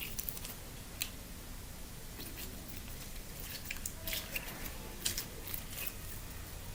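Quiet, sticky clicks and squelches of slime being kneaded and mixed by hand, coming every second or so.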